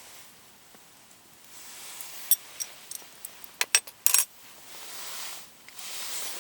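A quick run of light metallic clinks and taps between about two and four seconds in, over a hiss that swells and fades.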